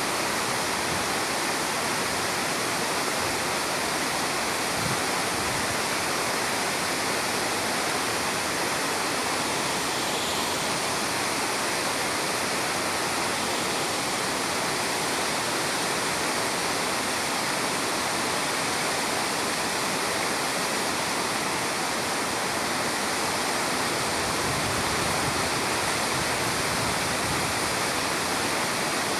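Water pouring over a small weir in a wide sheet, a steady, even rushing that does not change.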